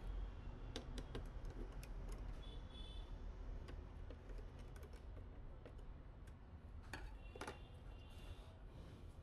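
Scattered light clicks and taps of computer hardware being handled and fitted during PC assembly, with a short clattery run about seven seconds in, over a low steady hum.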